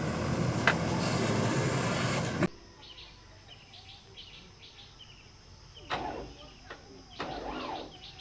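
A loud, steady rushing noise cuts off abruptly about two and a half seconds in. Birds then chirp repeatedly in short high notes over quiet outdoor background.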